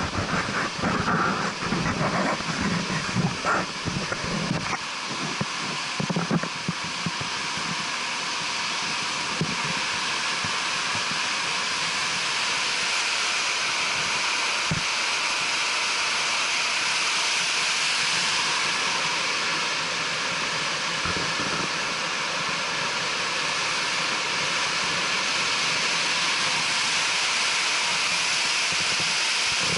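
Rapids of a glacier-fed river rushing over boulders: a steady, loud hiss that swells slightly and holds. In the first few seconds there are irregular knocks and clatter from the wooden suspension-bridge deck.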